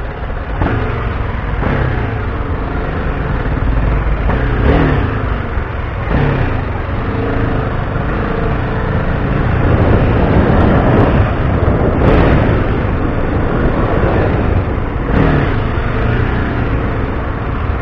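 Heavy wind buffeting on the bare microphone of an Amvox ADC-840 action camera riding on a moving motorcycle, filmed without its waterproof housing, so the wind swamps the audio. Under it the motorcycle engine rises in pitch a few times as it accelerates.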